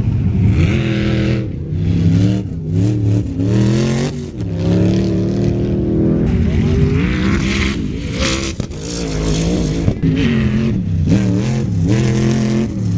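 Sand rail and side-by-side engines revving hard under full-throttle launches across the sand. The pitch climbs and drops again and again, with bursts of hissing noise over it.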